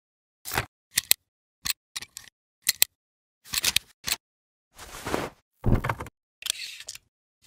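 A run of short video-editing transition sound effects, each cut clean by silence. First come quick sharp clicks and snaps, like a camera shutter. From about halfway they give way to longer noisy swishes, each about half a second long.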